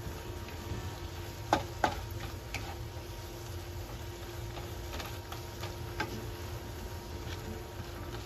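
Plastic spatula stirring sliced mushrooms in butter in a nonstick frying pan: a few sharp taps and scrapes against the pan, over a faint sizzle and a steady low hum.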